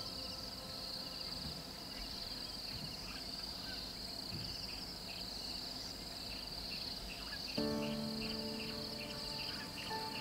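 Steady, high-pitched chorus of insects, with repeated short chirps over it. Soft steady background music chords come in about three quarters of the way through.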